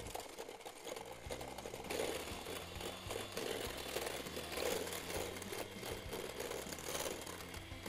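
Electric hand mixer running, its beaters whipping powdered whipped-cream mix with cold milk in a stainless-steel bowl; louder from about two seconds in.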